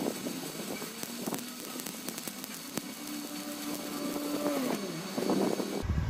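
Stick-welding arc from a Kazumi 200A inverter welder set to 100 amps, burning a 3.2 mm 6013 electrode: a steady crackling sizzle with scattered sharp pops. It cuts off near the end as the arc is broken.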